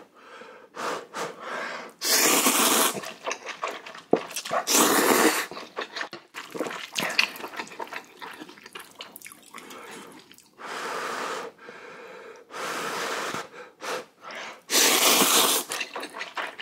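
A person slurping spicy instant ramen noodles in about five long, wet sucking draws, with short chewing and mouth clicks between them.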